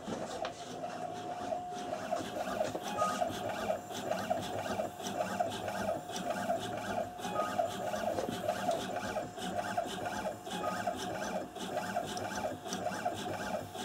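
Home-built CNC coil winding machine running its program, its motors turning a motorcycle alternator stator while winding very fine 0.14 mm copper wire onto the source coil: a steady, wavering machine whine with a buzzing, rasping edge.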